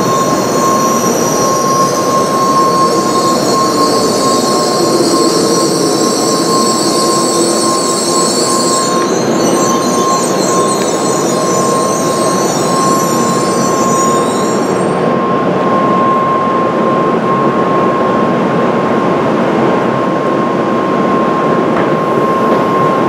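Tokaido Shinkansen train pulling into the platform and braking to a stop. A high hiss and squeal from its brakes and running gear fades and cuts out about fifteen seconds in as the train halts, over a steady rumble. A steady high tone sounds throughout.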